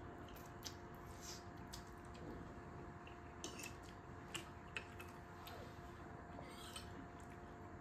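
Quiet eating: noodles slurped and chewed, with scattered light clicks of metal forks against plates, over a faint steady hum.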